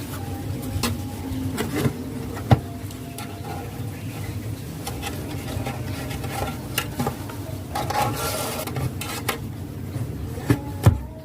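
Handling noise from building work: scattered sharp clicks and knocks, the loudest about two and a half seconds in and two more near the end, with a brief rubbing sound about eight seconds in, over a steady low hum.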